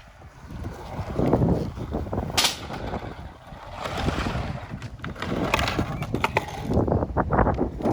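Skateboard wheels rolling over concrete, the rumble swelling and fading, with sharp clacks of the board about two and a half seconds in and a cluster of them a few seconds later.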